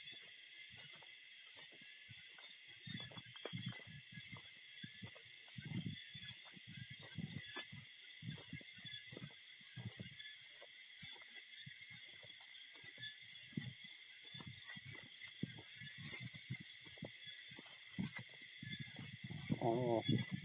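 Night insect chorus: a fast, evenly pulsing high trill over a steady high hum, typical of crickets. Irregular soft low thumps come and go throughout.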